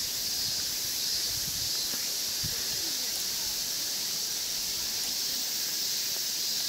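Steady high-pitched insect chorus from the surrounding trees, a constant shrill hiss with no let-up, with a couple of soft low thuds.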